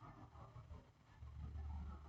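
Quiet room tone with a faint low rumble that swells about a second in.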